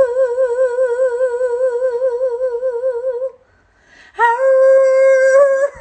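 Pomeranian dog howling on cue, "singing" in two long held notes with an even wavering pitch. The first note breaks off about three seconds in, and the second starts about a second later.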